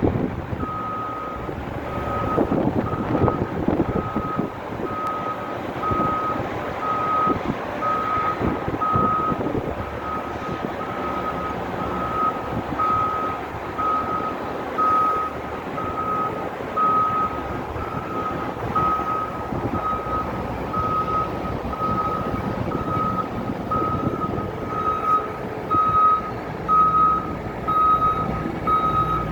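Caterpillar 950L wheel loader's back-up alarm beeping steadily, about three beeps every two seconds, over the loader's diesel engine working, which swells in loudness now and then.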